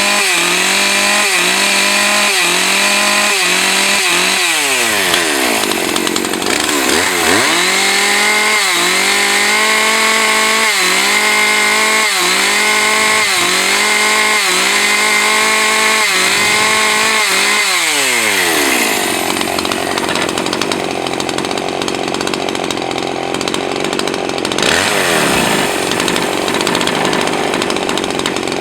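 Husqvarna 543 XPG two-stroke chainsaw at full throttle cutting a pine log, its engine speed dipping under load and recovering over and over. About two-thirds through the throttle is released and the saw drops back to idle, with one short blip of the throttle near the end. The owner thinks the carburettor's high-speed setting is too lean on revs, lower than it should be.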